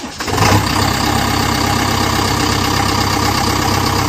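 Steady engine idling sound for a toy backhoe loader, coming up just after the start and then running evenly with a fast, regular pulse.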